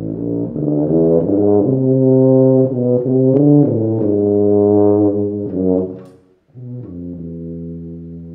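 Solo rotary-valve tuba playing a passage from an unmetered atonal solo etude: a run of loud sustained notes shifting pitch every half second or so, a brief break about six seconds in, then a much softer held low note that closes the phrase.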